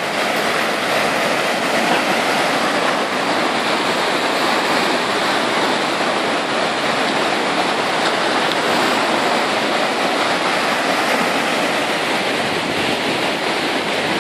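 A creek in flood after heavy rain, muddy water rushing and churning over its bed in a steady, loud rush.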